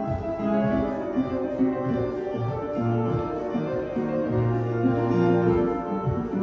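Instrumental classical music playing as ballet class accompaniment, with held notes and no singing.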